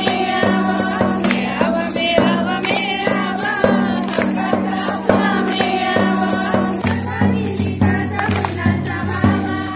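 A group of women singing a Marathi school-readiness song together over a steady percussion beat, with a deeper drum beat joining about seven seconds in.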